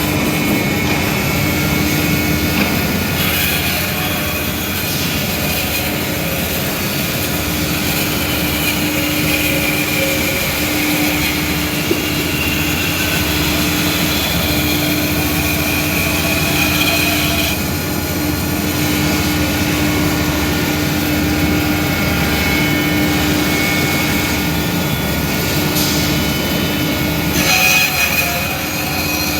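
CNC scroll saw running steadily: a continuous machine noise with a constant hum and a higher whine, briefly louder a couple of seconds before the end.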